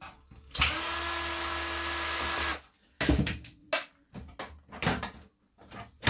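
Cordless drill/driver running for about two seconds with a steady whine, backing a screw out of an electric heater's sheet-metal casing. After it stops, a string of sharp clatters and knocks as the loose metal panel is handled.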